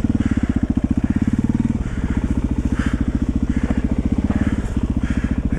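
1991 Yamaha XT350's single-cylinder four-stroke engine running at low speed with steady, even firing pulses. The note changes briefly about two seconds in and again near the end.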